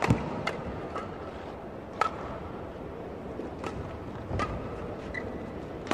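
Badminton rackets striking a feather shuttlecock in a rally: sharp cracks a second or two apart at irregular spacing, over steady arena background noise.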